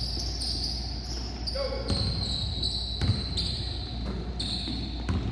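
Basketball bouncing with a few sharp thuds on a hardwood gym floor, and sneakers squeaking repeatedly in high, short squeals as players cut and stop.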